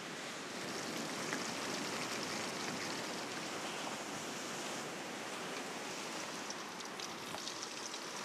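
Hot cooking oil in an aluminium pan sizzling steadily as green leaves are dropped in, with scattered crackles that come more often near the end. Surf washes behind it.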